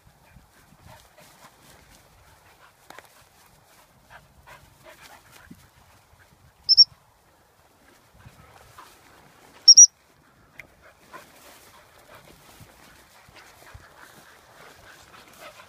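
Two short, shrill pips on a gundog training whistle, about three seconds apart, each one steady high note: the kind of single pip used to turn a dog hunting in front of the handler. Between them, faint rustling through rough grass.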